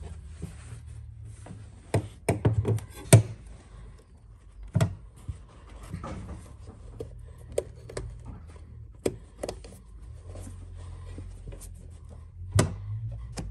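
Hands pressing and rubbing a piece of carpet into place against a metal bulkhead, with scattered taps and knocks, the loudest a cluster about two to three seconds in and another near the end, over a low steady hum.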